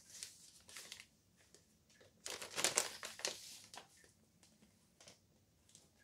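Paper potato bag crinkling and rustling as its folded top is handled and opened, in short bursts, the longest about two seconds in, then quiet for the last two seconds.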